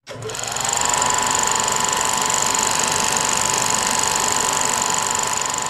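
Intro sound effect: a steady, fast mechanical whirring rattle, with a held tone that glides up slightly in the first second as if spinning up.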